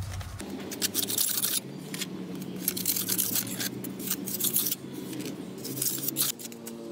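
Light clicking and scraping from small objects being handled, repeated irregularly, over a steady low hum.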